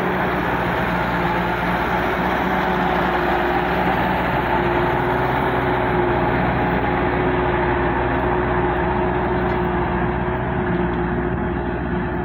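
Diesel engine of a TMT Cuu Long light dump truck loaded with acacia logs, running steadily under load as it pulls along a dirt track, easing off slightly near the end.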